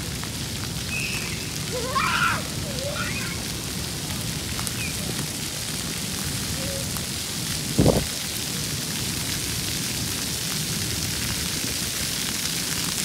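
Splash-pad fountain jets spraying water in a steady hiss, with children's shouts about two seconds in and a single brief thump near eight seconds.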